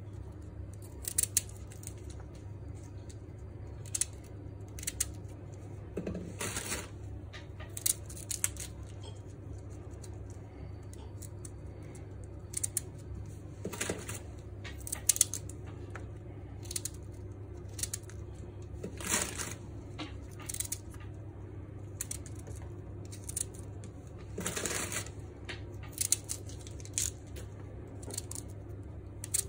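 Brussels sprouts being peeled and trimmed with a small knife: irregular short crisp cuts, snaps and scrapes as outer leaves are torn off and dropped onto a plastic cutting board, over a steady low hum.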